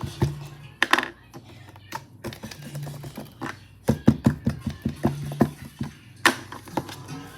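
Pink slime being squeezed and worked by hand, giving bursts of rapid clicking and popping, densest a few seconds in. Faint background music and film audio run underneath.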